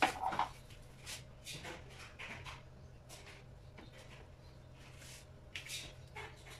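Quiet, faint handling sounds at a frying pan as a slotted plastic spatula is brought to a cooking pancake: a short knock at the start, then soft scattered scrapes and taps, a little louder a few seconds in, over a steady low hum.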